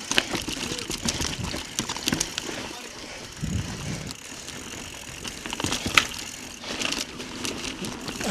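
Mountain bike descending a loose dirt trail: tyres crunching over loose ground, with the frame and chain rattling in irregular knocks over bumps. The loudest knock comes about six seconds in.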